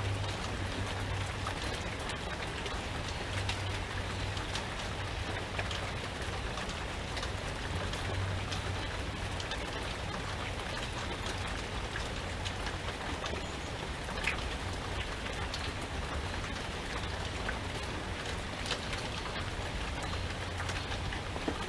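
Steady rain falling, with a constant hiss and scattered individual drops ticking on a surface.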